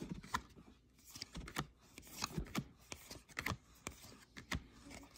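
A stack of baseball trading cards being flipped through by hand, each card slid off the front of the pile with a soft card-on-card rustle. Irregular short clicks come a few times a second.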